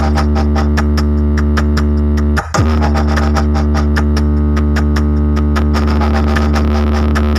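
Loud electronic DJ music played through a large speaker system on a sound test. It has heavy sustained bass and fast repeated drum hits. About two and a half seconds in there is a brief drop with a falling sweep.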